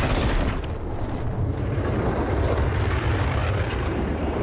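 Film battle sound effects: a sudden burst right at the start as a wooden siege catapult releases, then a steady low rumbling roar of a flaming projectile flying through the air.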